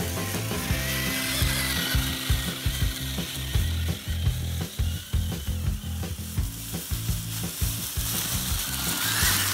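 Radio-controlled off-road model car driving over dry fallen leaves: its small electric motor and gears whine and clatter, rising in pitch as it speeds up near the end, over the crackle of leaves under its tyres.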